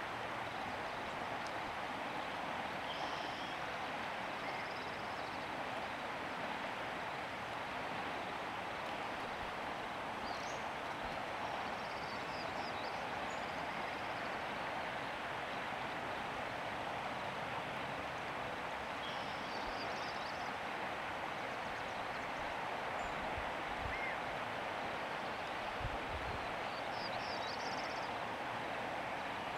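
Steady rush of river water. Faint, short, high bird chirps come in a few times over it.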